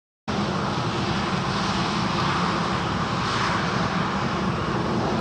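Boeing 737-800 jet engines (CFM56-7B turbofans) running with a steady, even roar that cuts in abruptly about a quarter second in after a moment of silence.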